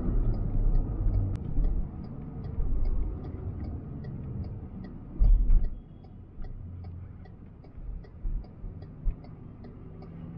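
Cabin noise of an MG Gloster SUV driving in city traffic: a steady low rumble of engine and road. A fast, even light ticking runs over it, and a heavier thump comes about five seconds in, with smaller ones near the end.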